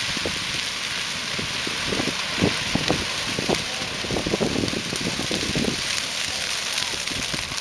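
A wall of flames burning through dry little bluestem prairie grass in a controlled burn. It gives a steady crackling hiss over a low rumble, with scattered sharper pops in the middle.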